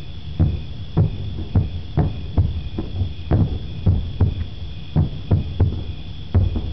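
Distant aerial firework shells bursting in a rapid, uneven series of low booms, about two a second.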